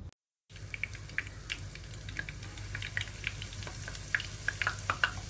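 Corn fritter batter sizzling in hot oil in a frying pan, with many scattered sharp crackling pops. The sound drops out for a moment just after the start.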